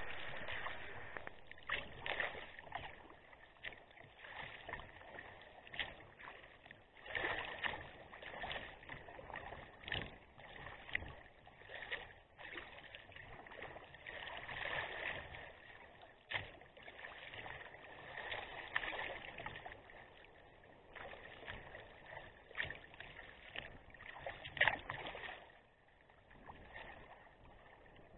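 Sea kayak being paddled through choppy water: irregular splashes of the paddle blades, about one every second or two, over water sloshing against the hull.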